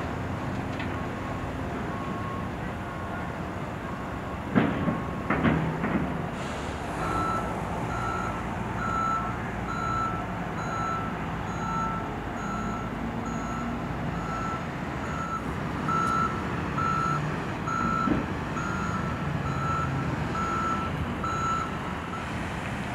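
A construction vehicle's reversing alarm beeping about once every three-quarters of a second, from about seven seconds in until near the end, over a steady engine rumble. A fainter, lower-pitched beep runs before it, and a few clanks sound around five seconds in.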